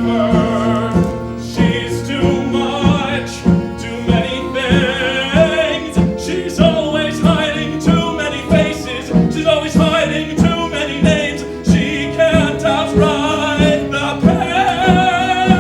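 Musical theatre song: a sung melody held in long notes with vibrato, without clear words, over instrumental accompaniment with a steady beat.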